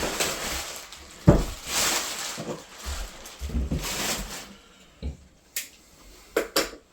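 Packaging being handled: three stretches of rustling in the first half, then a few sharp knocks, two of them close together near the end.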